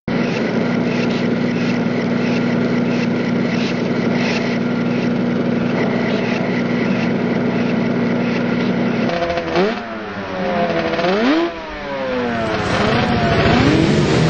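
Racing quad engines: a steady engine drone, then from about nine seconds in engines revving up and down in repeated rising and falling sweeps, and near the end a pack of quads running together.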